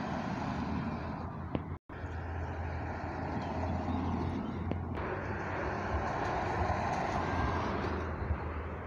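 Racing cars passing at speed on a hill-climb course, engines running hard under a steady spread of engine and tyre noise. The sound drops out completely for a moment about two seconds in, where the recording is cut.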